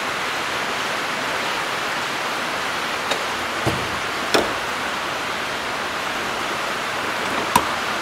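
Steady, even hiss of background noise, with a few faint light clicks about three to four and a half seconds in and one more near the end.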